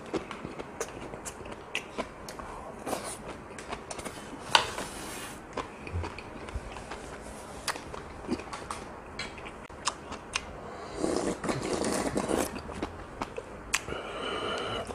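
Close-up eating sounds: chewing a mouthful of intestine stew, with scattered sharp clicks from a spoon and chopsticks against bowls.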